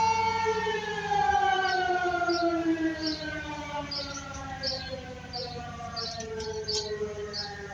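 Outdoor warning siren holding a steady tone, then winding down: after about a second its pitch starts falling slowly and keeps sliding lower as it spins down at the end of the test.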